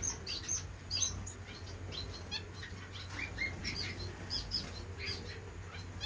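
Several pet finches chirping, many short high calls overlapping at an uneven pace, over a low steady hum.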